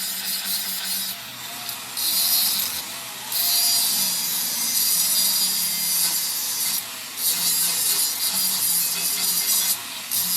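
A handheld abrasive power tool, such as a grinder or wire brush, working metal in several long passes with short breaks between them. Each pass gives a loud, high, rasping hiss over a faint steady motor hum.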